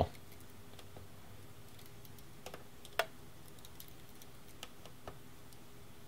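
Faint, sparse metallic clicks of a pocket-knife blade pushing down and turning a small screw in a typewriter's carrier mechanism, with one sharper click about three seconds in, over low room tone.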